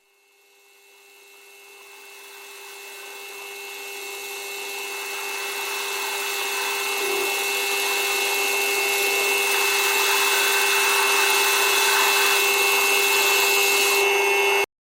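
Metal lathe running steadily while turning a taper on an annealed steel shaft: a steady whine with a hiss of cutting. It fades in over the first several seconds and cuts off abruptly near the end.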